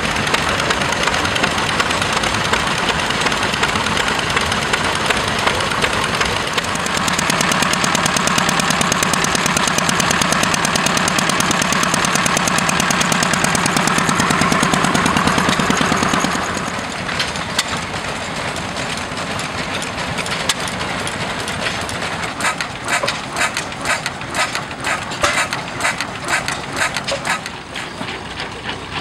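Vintage stationary engines running, one after another. First a hit-and-miss engine driving a water pump. Then a louder, steadier run with a fast even beat, and from about halfway on, irregular sharp firing knocks while a stationary hay baler works.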